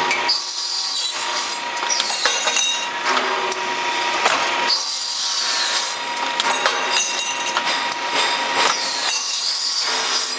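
A saw cutting, in repeated passes every two to three seconds, several of them carrying a high tone that falls in pitch.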